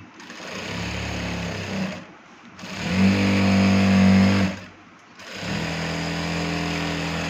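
Electric sewing machine stitching a side seam in three runs of about two seconds each, with short stops between them; the middle run is the loudest.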